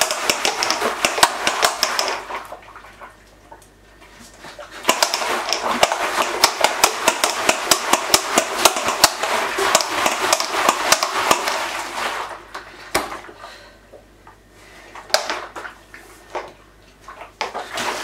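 Hot water sloshing and splashing inside a plastic homebrew pressure barrel as it is shaken hard, in quick rattling strokes: a short bout at the start and a longer one from about five to twelve seconds in, then a few single knocks. The shaking spreads the boiling water around the barrel to sterilise it and build up pressure inside.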